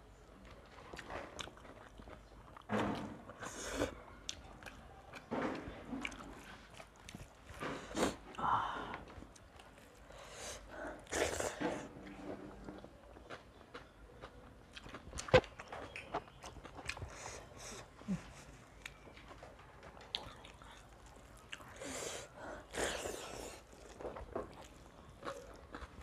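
Close-miked eating with the hands: chewing and biting noises, with fingers mixing rice and curry on steel plates, in scattered short bursts. A single sharp click about fifteen seconds in is the loudest sound.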